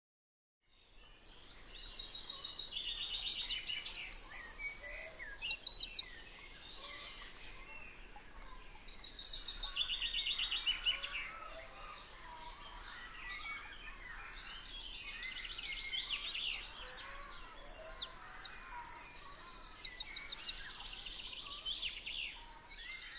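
Several songbirds singing together, with rapid trills and chirps overlapping, fading in just under a second in and swelling and easing in waves.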